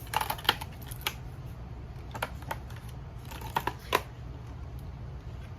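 Hands handling packaged beauty products: a scattering of short crinkles and taps, clustered at the start and again around three to four seconds in, over a faint steady low hum.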